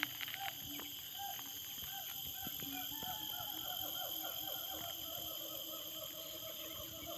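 Rural outdoor animal chorus: many rapid, short falling chirps from birds over a steady high-pitched insect drone. A few sharp clicks sound in the first half-second.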